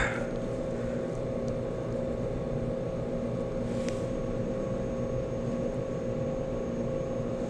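Steady mechanical hum with several constant tones, and a faint click about four seconds in.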